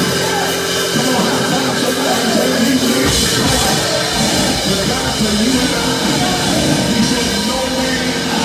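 Loud live church band music with drums, with a man's voice over it through a microphone. The bass and drums come in more fully about three seconds in.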